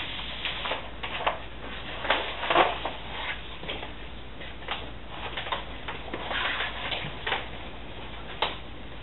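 Paper rustling and crinkling as a self-adhesive wallpaper mural panel is handled and pressed against the wall, in irregular bursts with a few light taps and one sharp click near the end. A steady low hum sits underneath.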